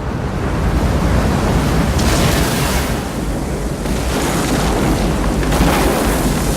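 Cinematic disaster sound effect of a giant tidal wave: a steady deep rumble under a rushing wash of noise that swells about two seconds in and again near the end.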